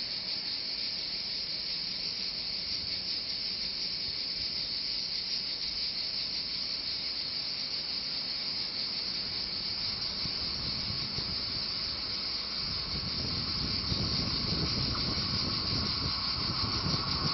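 Cicadas shrilling steadily at a high pitch. From about ten seconds in, the low rumble of an approaching train grows beneath them.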